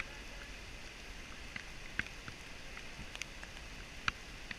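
Light rain falling steadily, with a few scattered sharp ticks of drops striking close by.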